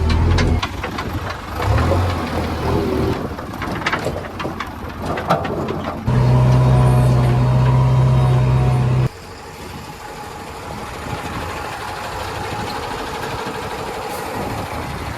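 Diesel engine of a JCB 3DX backhoe loader running at work, with clanks and knocks in the first few seconds. The sound changes abruptly twice, a louder steady engine note from about 6 to 9 seconds in, then a quieter steady running.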